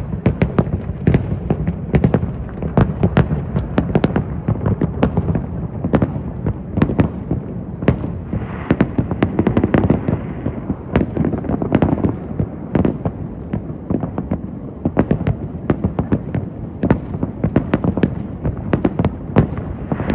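Aerial fireworks exploding in rapid succession: a continuous run of sharp bangs over a steady low rumble, with a thicker stretch of crackling about halfway through.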